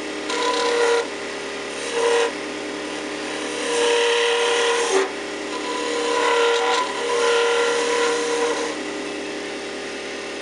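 Wood lathe running steadily while a turning tool cuts a spinning plum-wood letter-opener blank, the cut swelling louder in about five passes of half a second to a second and a half each.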